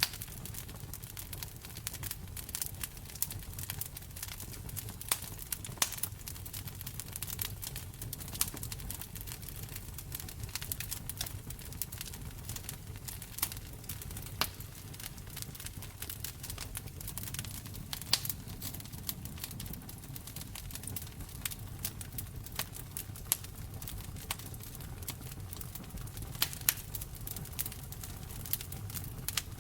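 Wood fire burning in a fireplace: a steady low rumble of flame with constant irregular crackling and occasional louder pops.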